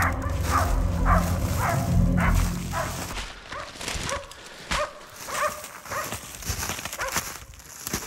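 Hunting laikas barking at a moose they are holding at bay, short barks at about two a second. A low steady rumble stops about three seconds in, and the barking goes on more faintly after it.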